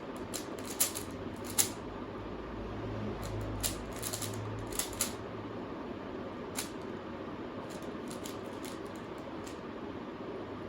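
Plastic clicks and clacks of a Rubik's cube being turned by hand, in quick irregular clusters during the first five seconds and then sparser, over a steady room hiss.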